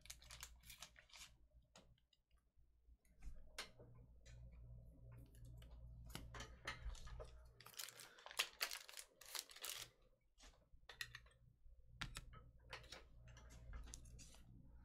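Near silence broken by faint scattered clicks and light rustles from hands working at a tabletop, thickest about eight to nine and a half seconds in.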